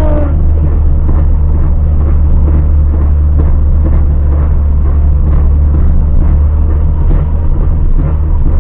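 Car being driven, with a steady low road and engine rumble and faint, irregular metal-on-metal scraping ("raspa-raspa", "ferro com ferro") from the right-hand wheel, which came on after the brake discs and pads were replaced.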